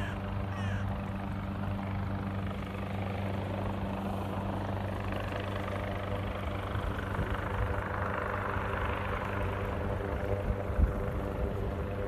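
A steady, even engine drone with a low hum. A rushing hiss swells over it in the second half, and there is one low thump near the end.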